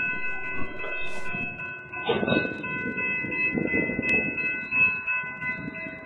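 Train passing on the rails, a rumble that starts suddenly and swells and eases every second or two as the cars roll by. Several steady high tones sound over it throughout.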